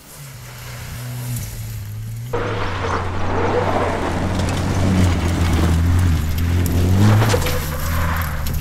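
Bowler Defender rally car's 2.0-litre turbocharged petrol engine running hard on a gravel stage, revs rising and falling as it passes. It gets louder, jumping up about two seconds in.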